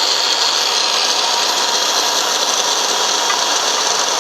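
Electric grinder running at full speed on the steel of a motorcycle subframe, a steady high whine over a continuous grinding hiss.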